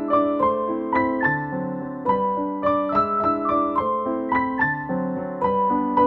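Background piano music: a gentle melody of notes struck a few times a second over held lower chords.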